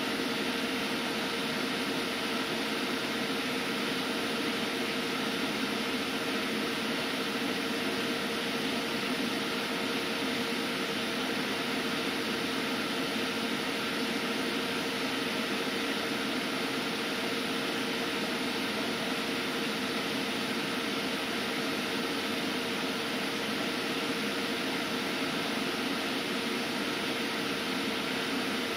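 EMotorWerks SmartCharge-12000 EV charger running under load, a steady hum and hiss with one constant mid-pitched tone, while it tapers the current at the end of a constant-voltage charge.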